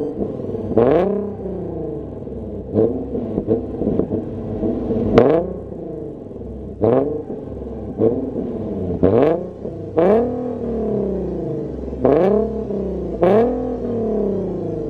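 Infiniti Q50's 3.7-litre V6 revved in quick throttle blips through an Ark Grip cat-back exhaust with stock cats, with about a dozen sharp revs, each falling straight back to idle. The loudest rev comes about five seconds in.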